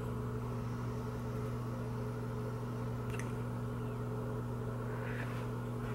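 Steady low mechanical hum with a few constant tones, with one faint click about three seconds in.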